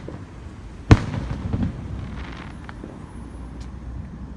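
Fireworks going off: one sharp bang about a second in, the loudest sound, followed by a rumbling tail and a few smaller pops and crackles.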